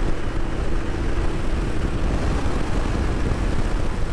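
Royal Enfield Interceptor 650's parallel-twin engine running steadily while riding on the road, mixed with steady wind rush over the rider's microphone. The engine breathes through a K&N-style DNA air filter under the stock plastic intake snorkel.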